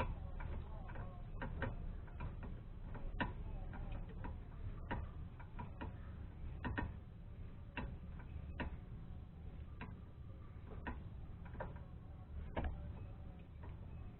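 Irregular light clicks and knocks from hand work on a car's rear brake, spaced about a second apart and uneven, over a low steady background hum.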